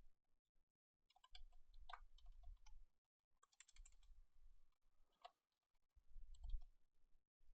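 Faint typing on a computer keyboard, in three short runs of key clicks with pauses between them.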